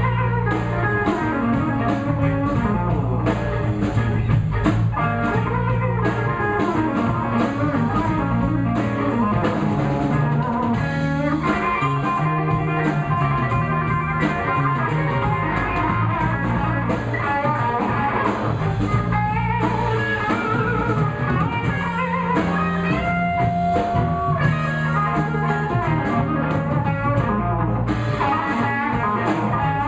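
Live electric blues band playing an instrumental break: a lead electric guitar solos with bent notes over bass guitar and a drum kit.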